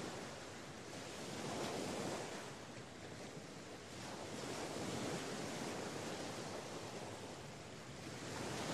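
A wide, even rushing hiss that swells and eases every few seconds, with little low rumble.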